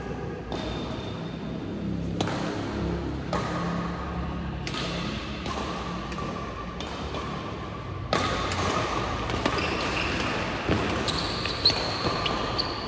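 Badminton doubles rally: rackets striking the shuttlecock again and again, every second or two, with players' footsteps on the court.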